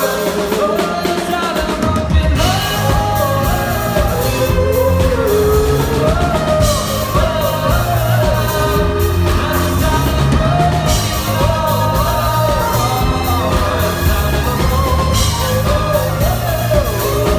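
Live pop-rock band playing, with pitched melody lines throughout; the full drum kit and bass come in about two seconds in.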